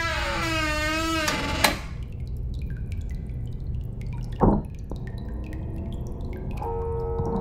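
Water dripping: scattered faint drops with one louder drop about halfway through, over a low steady rumble. A wavering, falling musical tone dies away in the first two seconds, and a held musical note comes in near the end.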